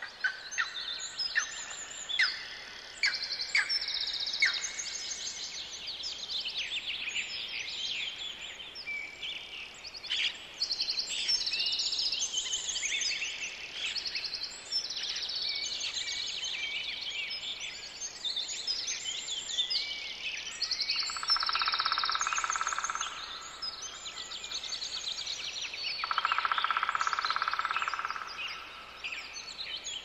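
Songbirds singing in a dense chorus of high chirps and trills. Twice, a lower buzzing sound runs for about two seconds.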